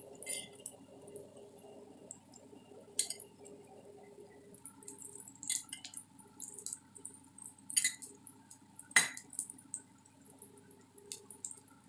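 Paniyaram batter frying in oil in a paniyaram pan: scattered small pops and crackles of hot oil, one sharper crack about nine seconds in, over a faint steady hum.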